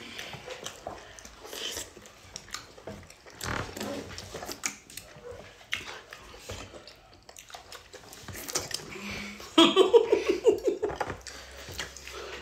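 Two people eating soupy food with their hands: wet chewing, slurping and lip-smacking, with finger and plate clicks. About ten seconds in, a short, loud pitched outburst with rapid pulses.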